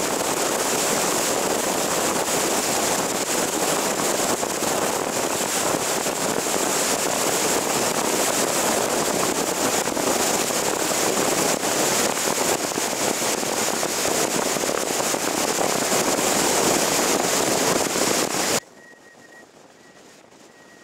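Steady road and wind noise of a car driving at speed. About two seconds before the end it cuts off abruptly, leaving a much quieter hiss with a faint, thin, high steady tone.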